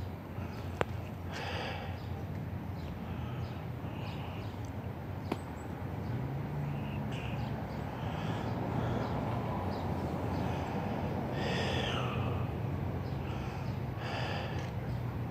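Street ambience: a steady low hum of traffic and idling engines that grows a little louder about six seconds in, with a few short distant calls and two sharp clicks, one about a second in and one about five seconds in.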